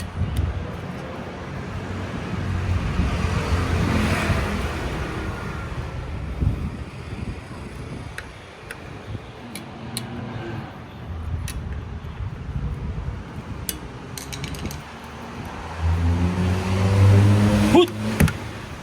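Scattered sharp metal clicks and knocks as a replacement spring part is worked into a chest freezer's lid, over a steady low rumble like passing traffic. Near the end the rumble swells into a louder pitched hum.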